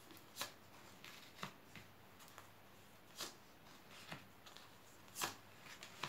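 Tarot cards being pulled from the deck and laid one at a time on a cloth-covered table: about five soft, brief card slaps and slides, quiet overall.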